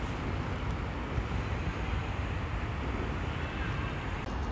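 Steady outdoor background noise with a continuous low rumble and no distinct events.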